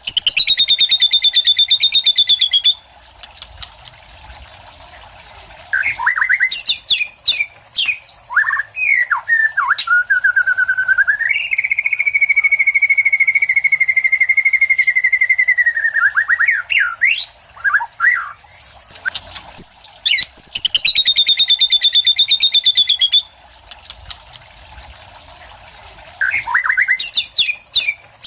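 White-rumped shama (murai batu) singing in long varied phrases, with mimicked material worked into the song. A fast, rattling trill comes at the start and again about twenty seconds in, with quick swooping whistles between them and one long steady whistle held for about five seconds in the middle.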